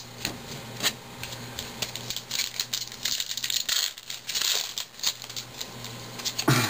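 Baseball cards and a foil card-pack wrapper being handled on a table: light taps and clicks of cards being set down, with crinkling of the foil in two stretches and a louder knock near the end.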